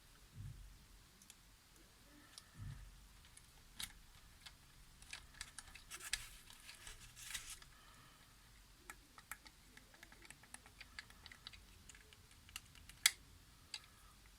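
Light clicks and taps of a TV remote control's plastic parts being handled and fitted back together, with two soft bumps near the start and one sharper click near the end.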